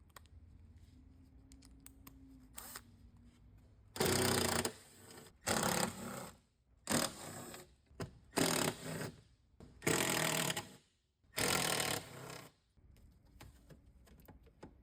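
Power driver with a T25 Torx bit running in a series of short bursts, backing out the screws of a Tesla Model S inner door carrier plate. A few faint clicks come first, and the bursts start about four seconds in.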